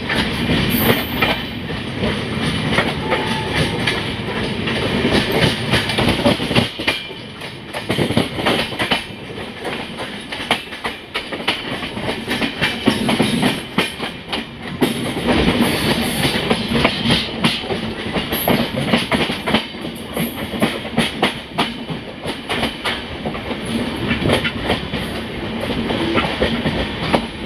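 Indian Railways express train running, its coach wheels clattering over the rail joints: a steady rumble thick with quick clicks.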